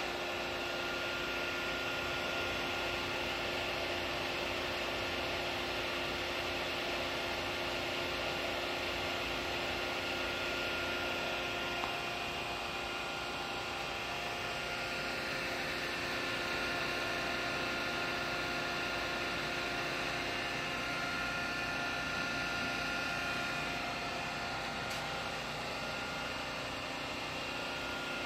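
Rebuilt Kitagawa S1243-28 rotary hydraulic cylinder running on a test stand with its hydraulic supply connected: a steady mechanical hum and hiss with several constant tones, unchanging throughout.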